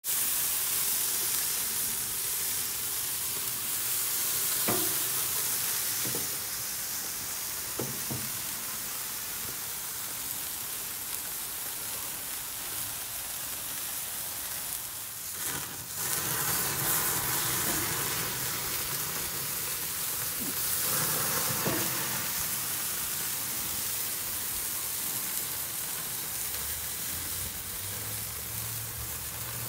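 Thick tomahawk ribeye steaks sizzling as they sear on the grate of a charcoal kettle grill: a steady hiss with a few scattered sharp clicks.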